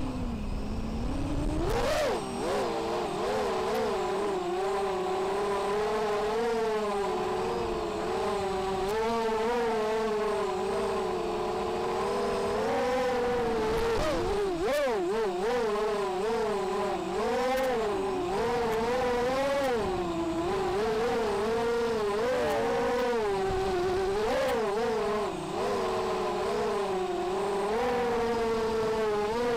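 FPV racing quadcopter's four T-motor 1806 2300KV brushless motors and propellers whining, heard on board. The pitch rises and falls continually with the pilot's throttle changes, dipping low at the start and climbing back about two seconds in.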